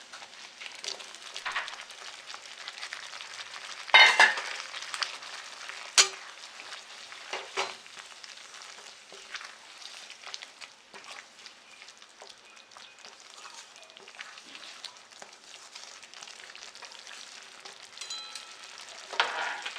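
Potato and paneer pieces being stirred into a pan of simmering masala gravy: a steady soft sizzle, with a few sharp knocks against the pan. The loudest knocks come about 4 and 6 seconds in, and more come near the end.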